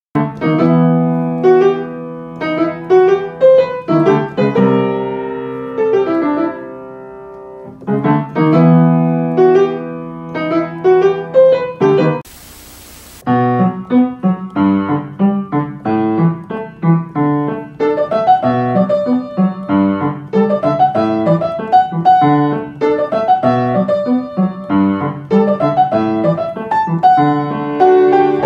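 Background piano music: a lively melody of struck notes over chords. About twelve seconds in, the music breaks off for about a second of hiss, then carries on.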